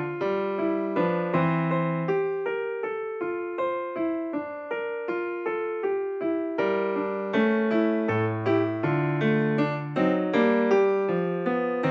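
Background music: a gentle electric piano playing a steady run of struck notes and chords.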